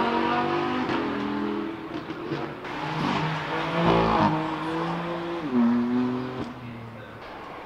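A high-performance car engine being revved and driven hard. The note climbs to a peak about four seconds in, drops a step in pitch a little later, then fades away near the end.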